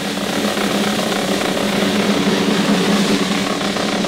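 Several snare drums played together in a continuous roll by marching procession drummers, a dense steady rattle with a low ringing note underneath.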